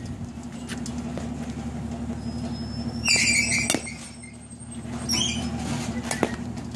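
Batting cage: a steady low hum, a loud high-pitched squeal about three seconds in that ends in a sharp crack of the bat meeting the ball, and a shorter squeal about five seconds in.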